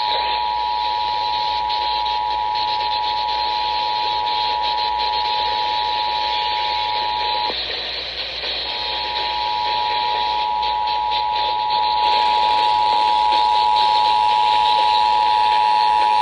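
Emergency Alert System attention signal: the two-tone alert (853 and 960 Hz together) held steady, over a radio receiver's hiss. The tone breaks off for about a second some seven seconds in, then resumes.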